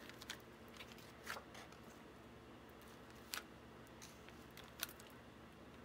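Very quiet handling sounds: a rubber-band-wrapped cardboard block lifted off a fresh paint print and set down on the table, giving a few soft taps and rustles over a low room hum.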